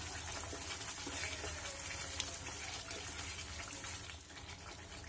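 Creamy paneer masala gravy simmering in a pan over a medium flame, with a soft, steady bubbling crackle as a wooden spatula stirs through it.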